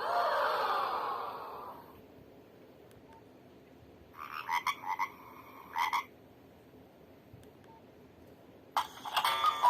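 Nokia 1600 mobile phone playing ring tones through its small speaker. It opens with a buzzy sound of about two seconds, sliding down in pitch, then gives a few short notes a few seconds later, and a melody begins near the end.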